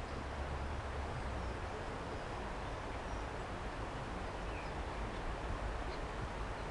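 Steady outdoor background noise with a low rumble and a few faint, brief bird chirps.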